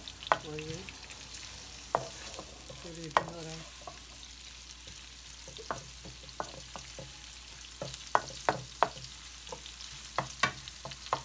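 Sliced onions sizzling in hot oil in a wok, still pale and softening, while a wooden spoon stirs them and knocks and scrapes against the pan. The sizzle is steady; the spoon knocks come now and then, then in a quicker run from about eight seconds in.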